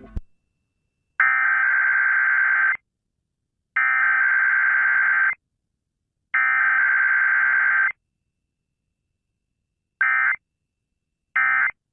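Emergency Alert System (EAS) digital data tones: three harsh, buzzy bursts of about a second and a half each, about a second apart, carrying the SAME alert header. After a pause come two short bursts of the same buzz, the end-of-message code.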